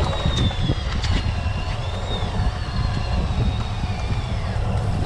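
Steady low rumble of the fishing boat's engine mixed with wind on the action camera's microphone, with faint thin high tones drifting slowly up and down in pitch over it.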